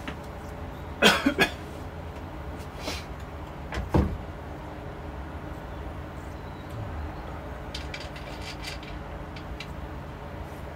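Knocks and clicks of a switched-off plunge router being handled on a plywood template: a sharp double knock about a second in, another knock near four seconds, then lighter clicks, over a low steady hum.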